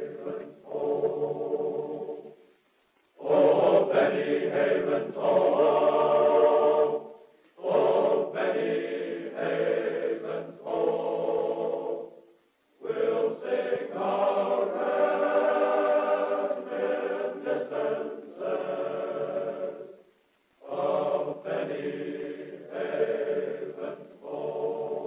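Choir singing slowly in long, held phrases, with brief pauses between the phrases.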